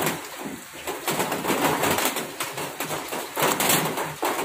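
Close-up chewing of crispy fried chicken: irregular crunches over a steady hiss.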